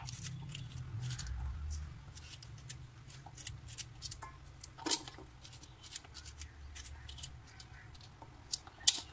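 Kitchen knife cutting fresh okra pods held in the hand over a steel bowl: a string of irregular clicks, the loudest about five seconds in and another near the end.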